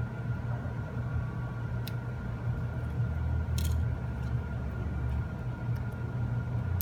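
Steady low background hum with a faint steady high whine, broken by a few light clicks of small tools working on the phone.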